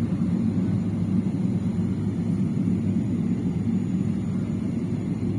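Steady low rumble of a Boeing 777-200LR's GE90 jet engines and rushing air, heard inside the economy cabin from a window seat beside the engine.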